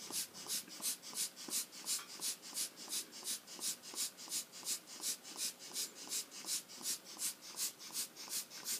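Tim Holtz Distress Marker Spritzer being squeezed over and over, each squeeze a short hiss of air that blows ink off the Distress marker's tip onto cardstock. The puffs come in a steady rhythm, about four a second.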